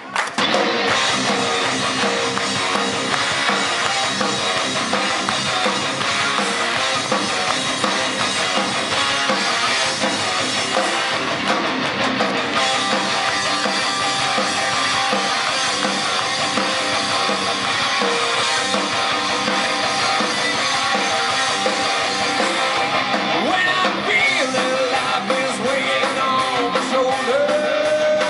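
Rock band playing live, electric guitar over a full drum kit. The full band comes in just after a brief drop at the very start.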